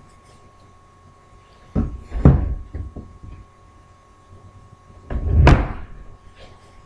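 Knocks and clatter from handling an electric oven's rack and baking dish: a pair of thuds about two seconds in, then a louder clank that rings briefly about five and a half seconds in.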